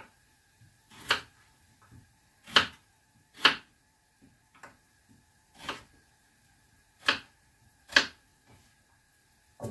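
A kitchen utensil clinking against dishes: six sharp knocks at uneven intervals, over a faint steady hum.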